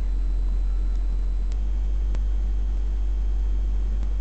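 Steady low hum over faint hiss, with two faint ticks about a second and a half and two seconds in.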